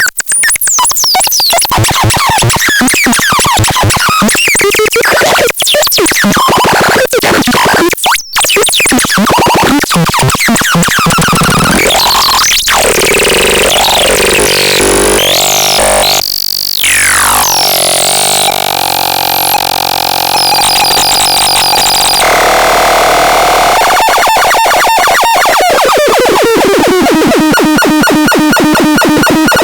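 ULTRA TANZ electronic synthesizer being played. It makes loud, chaotic glitchy noise and sweeping tones, with a falling pitch glide about halfway through, then held steady tones, and near the end a fast, even pulsing pattern.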